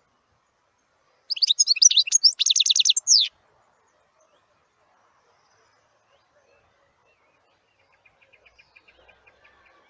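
A bird singing: a loud two-second burst of rapid high twittering notes about a second in, ending in a fast trill. Near the end comes a faint run of quick repeated chips.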